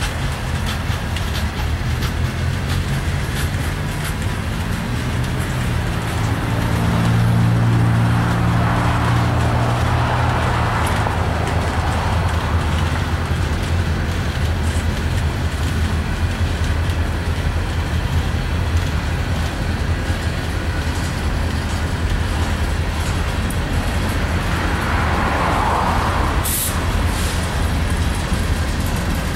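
Freight train cars rolling past at close range: a steady rumble of steel wheels on rail that swells briefly about seven seconds in.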